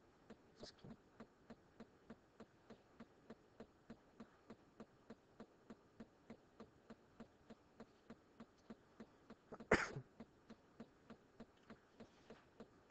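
Quiet room with a faint, even ticking about three times a second, and one short throat-clearing sound about ten seconds in.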